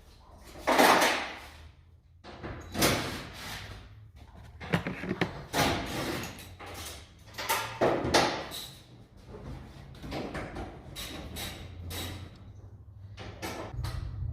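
Irregular knocks, clatters and scrapes of hands-on work, about a dozen short separate noises. A low steady hum comes in near the end.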